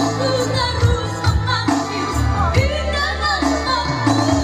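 A girl singing a slow melody through a microphone and PA, backed by an electronic keyboard playing steady held bass notes.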